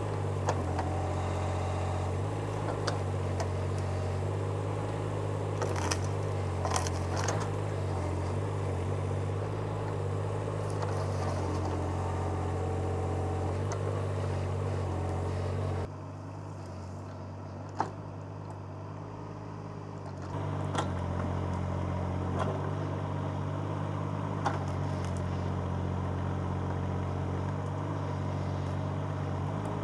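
Excavator engine running steadily under work, with scattered sharp knocks and cracks as the toothed bucket digs out dead tree roots. The engine noise drops abruptly for about four seconds midway, then returns.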